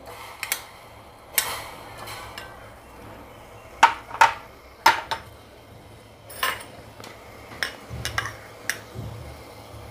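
A steel spoon clinking and scraping against a bowl and a steel saucepan as lumps of jaggery are tipped into the pan: a string of separate clinks and knocks.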